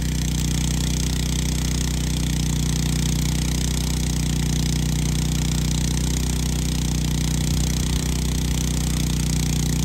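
A loud, steady machine hum at a fixed pitch that does not change.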